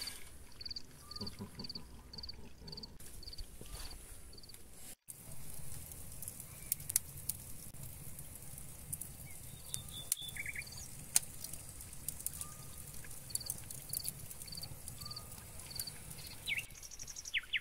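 Crickets chirping in a steady rhythm, about three chirps a second. After a brief dropout about five seconds in, a wood fire crackles with sharp pops over a low rumble of flames.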